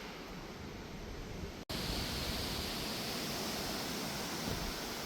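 Wind, a steady rushing hiss with no pitch. It drops out for an instant about a second and a half in, then comes back louder and brighter.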